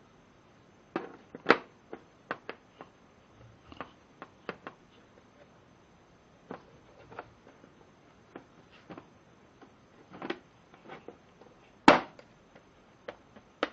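Metal Allen wrenches clicking and snapping in and out of a plastic holder: a scatter of short sharp clicks and knocks, with one louder snap near the end.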